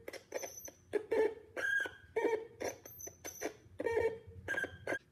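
Homemade theremin circuit sounding through a small computer speaker. About eight short electronic tones start and stop as the clip makes and breaks contact, jumping between different pitches as it touches each resistor of the triple-resistor block: more resistance gives a lower pitch.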